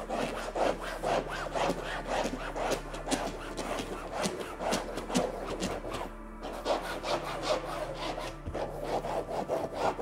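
Stiff built-in brush of an aerosol upholstery cleaner scrubbing velvet sofa fabric in brisk back-and-forth strokes, working the sprayed cleaner into the pile to lift stains. The strokes pause briefly about six seconds in.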